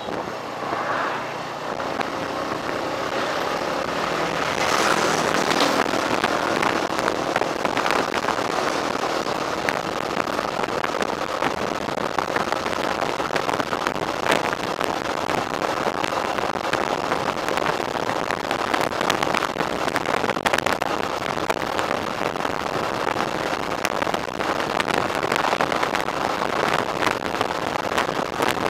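Motorcycle ride heard through an action camera's built-in microphone: a steady rush of wind and road noise with the engine running underneath, and scattered sharp crackles. It grows louder about four seconds in.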